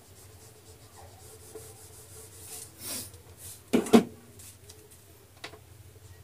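Felt duster rubbing across a whiteboard in short strokes, erasing marker writing. Two sharp knocks come close together about four seconds in, with a small click later.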